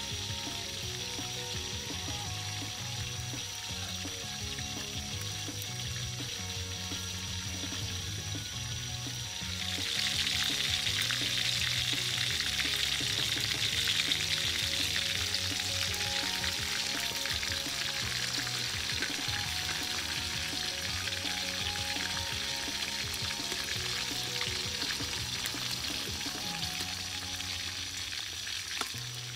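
Whole quail deep-frying in a wok of bubbling oil, a steady sizzle that grows louder about a third of the way through, over background music.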